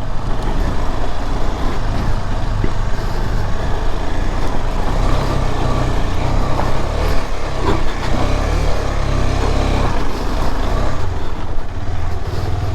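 KTM 250 Adventure's single-cylinder engine running steadily as the motorcycle rides over a rocky off-road trail, with a few knocks from the bike on the stones.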